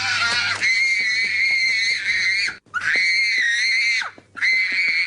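Shrill, high-pitched screaming with a wavering pitch, in three long stretches separated by short breaks.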